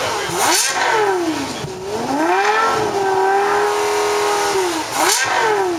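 Sports car engine revved while standing still, heard close to its exhaust: a quick blip about half a second in, a longer rev held for about two seconds in the middle, and another quick blip near the end.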